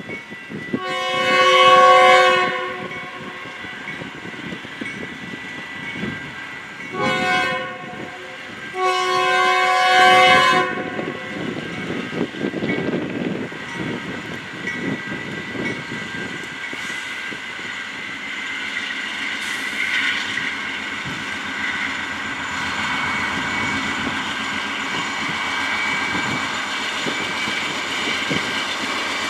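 Train air horn sounding three blasts (long, short, long) over the first eleven seconds, followed by the train rolling past with steady wheel-on-rail noise and some clickety-clack.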